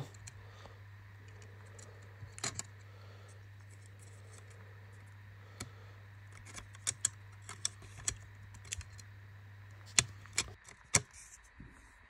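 The thin metal RAM shield of an HP ProBook 445 G11 is handled and pressed back into place over the memory module, making scattered small clicks and taps. They come more often in the second half, with the sharpest clicks a little before the end, as it seats.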